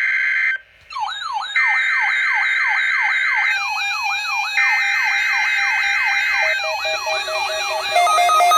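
NOAA Weather Radio test alert. Three bursts of buzzy, screeching digital data tones (the SAME header that marks a Required Weekly Test) are overlaid from about a second in by a weather radio receiver's siren alarm, a rising whoop repeating about twice a second. Near the end a pulsed beeping alarm joins in.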